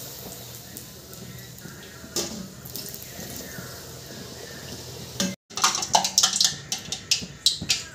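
Ragi poori deep-frying in hot oil in an aluminium kadai: a steady sizzle, then, after a brief drop-out about five seconds in, louder irregular crackles and pops of spattering oil.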